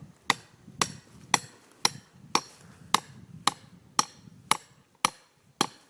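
Hammer blows: eleven sharp strikes at a steady pace of about two a second, each with a short ring.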